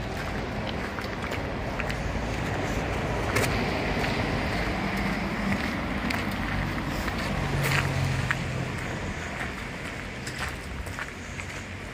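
City street traffic: a car drives past, building to its loudest around the middle and then fading, over a steady background of urban noise, with scattered footsteps.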